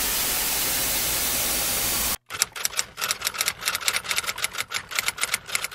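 A steady hiss like static runs for about two seconds and cuts off abruptly. About two seconds in, a rapid run of keyboard typing clicks follows, several a second, as a search is typed on a phone keyboard.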